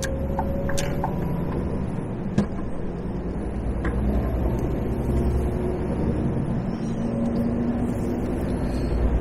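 A lorry's engine running steadily with road noise, heard from the cab, its tones shifting slowly with engine speed. A single sharp click about two seconds in.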